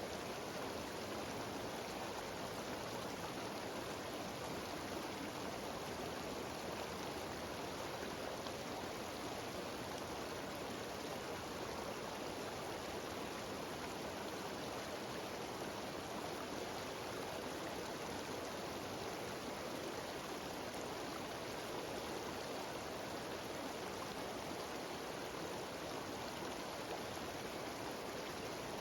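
Cascading mountain waterfall: a steady, unbroken rush of falling water.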